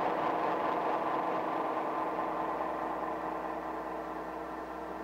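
An engine running steadily with a constant hum, growing slightly quieter toward the end.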